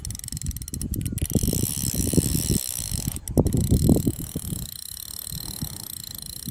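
Fishing reel's gears and clicks running in quick, dense strokes as a big carp is played on the line, with a brief lull about three-quarters of the way through.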